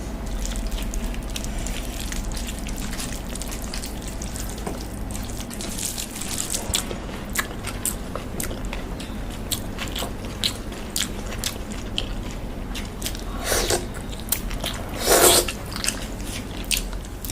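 A person biting and chewing chicken close to the microphone: a run of sharp wet clicking mouth sounds, with two louder, longer bites near the end.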